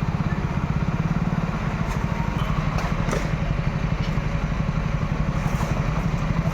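Motor vehicle engine running steadily with a fast, even pulsing throb, with a few light clicks over it.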